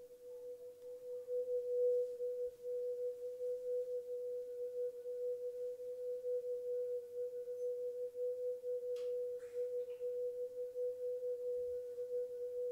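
A single sustained drone tone on a B, nearly pure and wavering slightly in loudness, the opening note of an ambient piece. A few faint, brief scratchy noises come about nine to ten seconds in.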